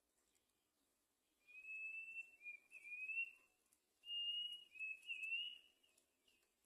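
A bird calling with two thin, high whistled calls, each about two seconds long and wavering slightly in pitch, with a short gap between them.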